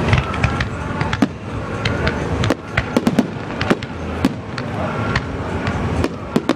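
Fireworks display: shells bursting in a quick, uneven run of sharp bangs and crackles over a continuous low din.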